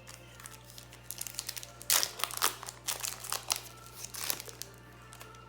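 Foil Pokémon booster pack wrapper crinkling as it is handled, in a run of sharp crackles starting about two seconds in, the loudest at the start.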